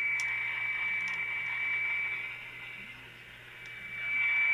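Static hissing from a Caprice AM radio's speaker with a steady high-pitched whistle over it, the kind of whistle heard when tuning between AM stations. The static and whistle fade down a little past halfway and come back near the end.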